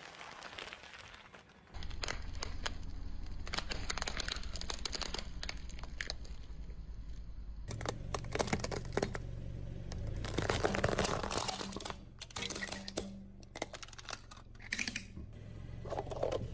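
Objects crunching and crackling as they are crushed under a car's tyres, many quick cracks over a steady low engine hum. The sound changes abruptly twice as the shots cut.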